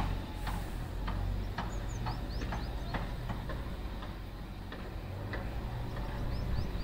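Outdoor ambience: a steady low rumble with a run of short, sharp high ticks or chirps, about two or three a second.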